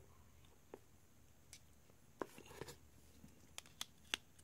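Plastic flip phones handled by hand: a handful of faint clicks and taps, scattered through, as a phone is set down and a Motorola RAZR with its back cover off is picked up.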